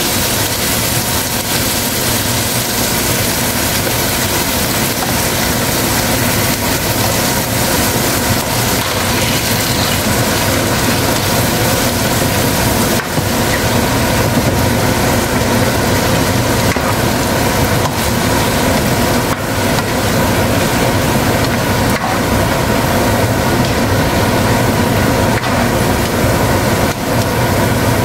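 Chicken livers and gizzards sizzling steadily in hot oil in a nonstick wok, with a few brief scrapes of the spatula as they are stirred.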